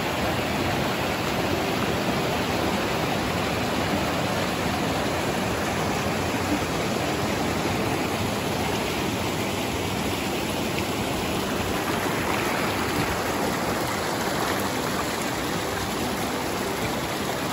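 A mountain creek rushing through white-water rapids between boulders: a steady, unbroken rush of water.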